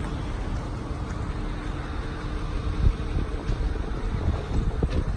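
Ford F450's Power Stroke V8 turbo diesel running with the PTO engaged, driving the hydraulics of the raised Altec telescopic boom, with a steady hum. Wind rumbles on the microphone.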